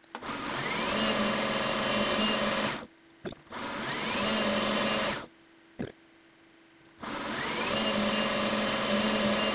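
Benchtop metal lathe running three times with short near-silent breaks between. Each run has a rising whine near its start as the spindle comes up to speed, then a steady motor hum, while gripping grooves are turned into an aluminium bench dog.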